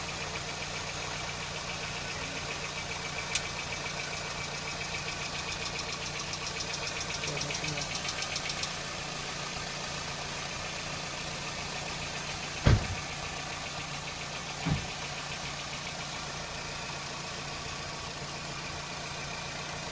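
Hyundai Getz engine idling with a rapid, regular ticking knock, which the owner suspects comes from the hydraulic lifters. Two dull thumps sound in the second half.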